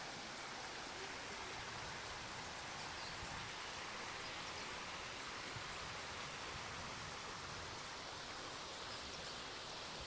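Shallow stream water running over pebbles and stones: a low, steady rush with no breaks.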